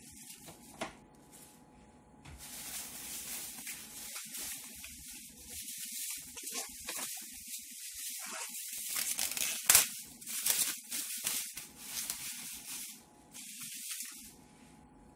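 Thin clear plastic wrapping pulled off a new sewing machine by hand: plastic crinkling and rustling that starts about two seconds in, with one sharp crackle about ten seconds in, dying down near the end.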